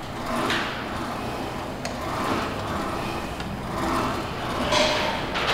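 A set of seated calf raises on a plate-loaded machine: a swell of sound about every two seconds, in time with the reps, with the strongest one near the end.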